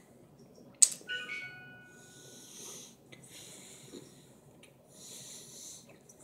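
Slow, hissing breaths through the nose, three or four of them about a second each. A sharp click comes about a second in, followed by a brief ringing tone.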